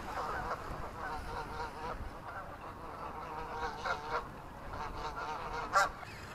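A flock of Canada geese honking, many calls overlapping, with one louder honk near the end.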